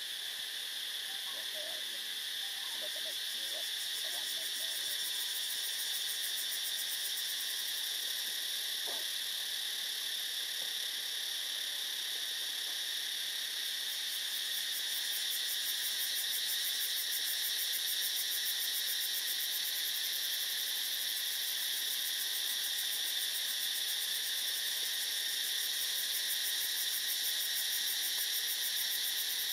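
Steady high-pitched drone of a tropical insect chorus, unbroken and slightly swelling in level partway through.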